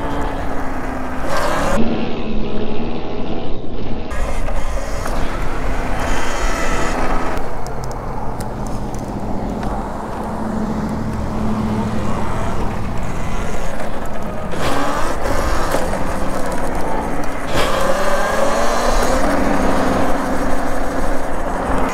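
Wind rushing over the microphone with the whine of a Talaria Sting electric dirt bike's motor, the whine gliding up and down in pitch as the bike speeds up and slows on the road.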